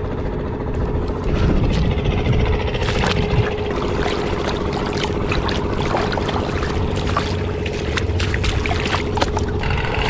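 Hands sloshing and splashing a live octopus about in shallow seawater, with irregular splashes and drips, over the steady drone of an engine running.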